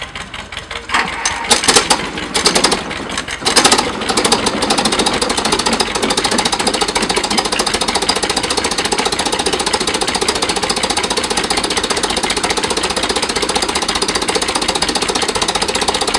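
1945 Allis-Chalmers tractor engine running: loud, uneven bursts for the first few seconds, then settling into a steady, rapid beat.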